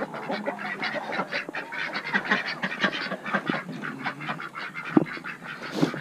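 A flock of ducks calling, many short overlapping calls one after another, with a single sharp knock about five seconds in.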